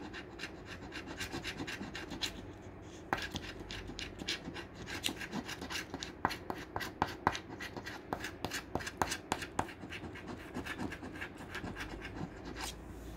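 A coin scratching the coating off a paper scratch-off lottery ticket in quick, rapid strokes, with a short pause two to three seconds in.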